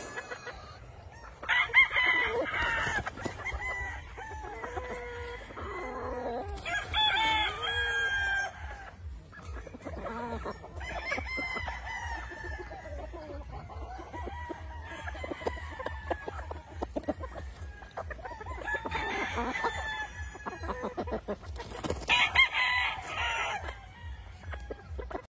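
Gamefowl roosters crowing again and again, with chickens clucking between the crows; the loudest crows come about two seconds in and near the end. A steady low hum runs underneath.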